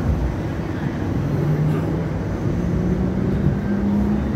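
Hong Kong Light Rail Phase III light rail car running, heard from inside: a steady low rumble, with a motor whine that rises in pitch from about a second in as the car picks up speed.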